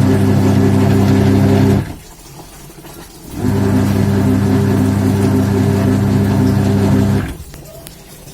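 Wash motor of an LG twin-tub washing machine humming as it drives the wash pulsator. It stops about two seconds in, starts again a second and a half later, and stops again near the end, in the start-pause rhythm of the wash cycle as the motor changes direction.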